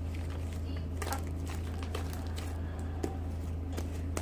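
Hands squishing and kneading sticky homemade slime: scattered soft squelches and clicks over a steady low hum.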